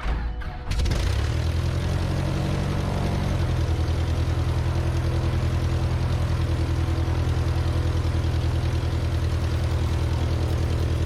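Van's RV-8's piston engine and propeller running steadily, heard through the cockpit intercom audio feed. The engine comes up to full level just under a second in, and its pitch shifts slightly about three seconds in.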